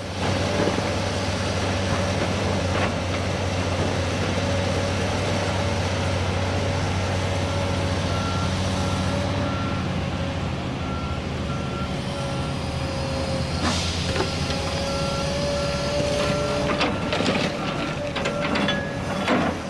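Komatsu PC228 excavator's diesel engine running steadily, with a travel alarm beeping in an even rhythm through most of it. A few sharp clanks come near the end.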